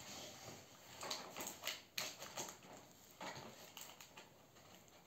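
Rustling and scraping of a cardboard toy box and its packaging being handled and pulled at, with irregular sharp taps and knocks.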